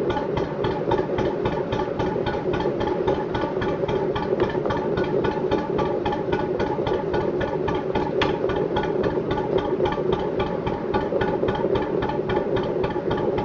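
National 2DM two-cylinder marine diesel running at a steady, even beat, propelling a narrowboat. There is one brief click about eight seconds in.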